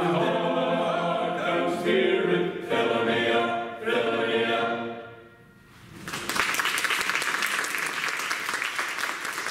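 Men's choir singing the closing phrase of a song, the last chord dying away about five seconds in. Then the audience applauds.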